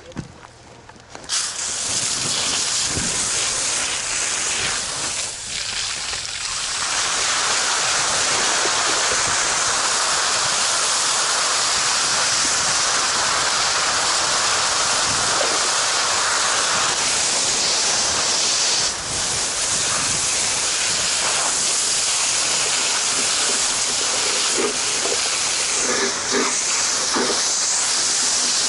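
Fire hose nozzle opened about a second in, then a steady hissing jet of water spraying onto burning debris.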